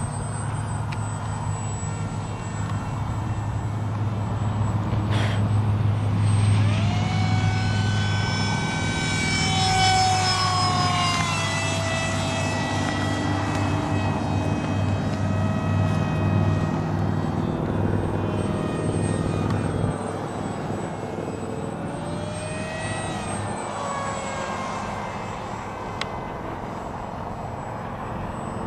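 Electric RC airplane in flight: the whine of its brushless outrunner motor and small propeller over a steady low hum. The pitch slides down from about eight to twelve seconds in and rises again later, as the plane passes and the throttle changes.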